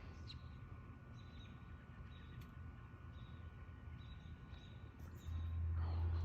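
Faint birds chirping over a quiet low rumble and a faint steady hum. About five seconds in, a much louder low rumble sets in.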